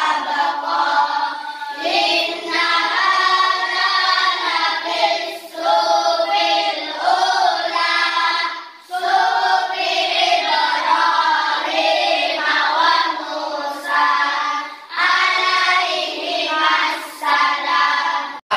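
A class of children singing together in unison, in long phrases with short breaks between them.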